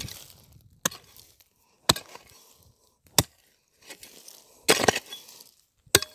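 Steel hoe blade chopping into hard, stony, gravelly soil: about six sharp strikes, roughly one a second, each followed by a short rattle of loosened grit and pebbles.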